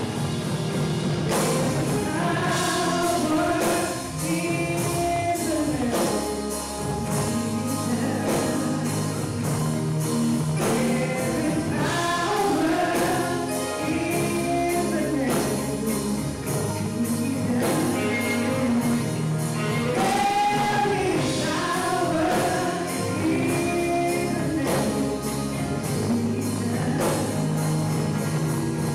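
Live gospel praise music: a woman sings lead into a microphone over a band of electric guitar, keyboard and drums, with a steady beat throughout.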